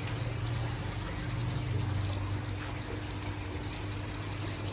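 Water pouring and trickling steadily into an aquarium, as from a filter return, over a steady low hum.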